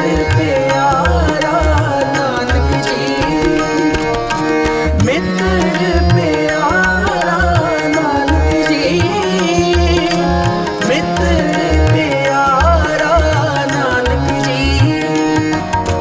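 Instrumental interlude of a Sikh kirtan shabad: tabla keeps a steady rhythm of deep bass strokes under held harmonium tones and a winding melodic lead line.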